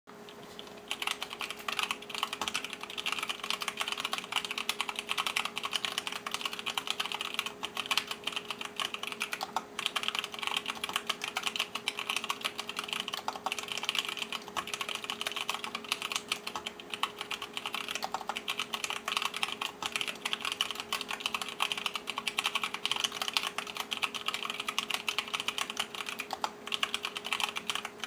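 Continuous fast typing on an mStone Groove 87-key mechanical keyboard with an FR4 plate and Cherry MX Clear tactile switches on 65 g springs; a dense run of keystrokes starts about a second in.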